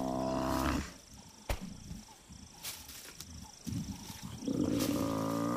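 Buffalo bull, pulled down by lions, bellowing in distress: one long low moaning call ending a little under a second in, and another beginning about four and a half seconds in. A sharp knock and quieter scuffling come between the calls.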